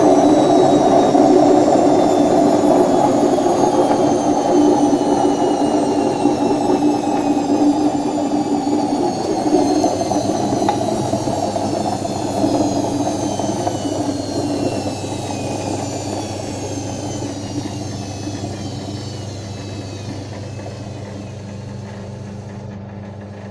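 Indesit WIE87 washing machine winding down from its spin: a motor whine falls steadily in pitch over a rumble from the drum, both fading gradually.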